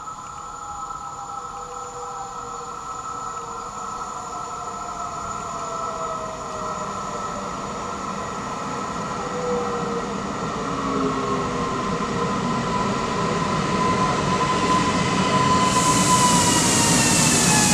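Electric multiple unit train approaching and passing, its motors giving a whine of several tones that slowly falls in pitch as the train grows louder. About sixteen seconds in, a loud hiss of wheels on rail comes in as it goes by close.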